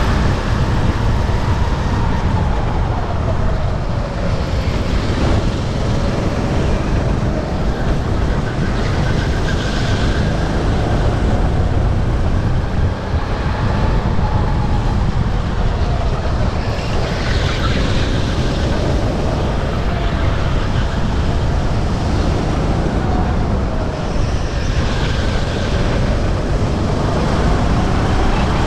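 Sodi RT8 rental kart's single-cylinder four-stroke engine running under race load, its pitch rising and falling repeatedly every few seconds as it accelerates and backs off around the laps, over a heavy low rumble.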